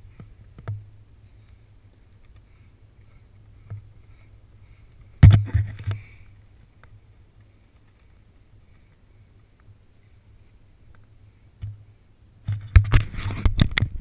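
A faint steady low rumble, broken by a sharp cluster of knocks about five seconds in. Near the end comes a longer burst of knocks and rustling as someone takes hold of the camera.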